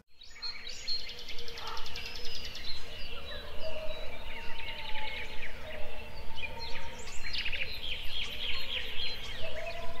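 Many birds calling and singing at once: a busy, overlapping chorus of short chirps, trills and whistles, over a steady low rumble.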